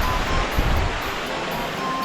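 Steady rush of a mountain stream's flowing water, with wind buffeting the microphone that drops away about a second in.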